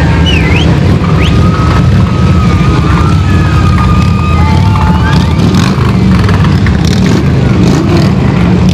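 Police motorcycles riding past in a group, their engines giving a loud, steady low rumble. Over it, in the first half, come high tones that waver and then hold steady.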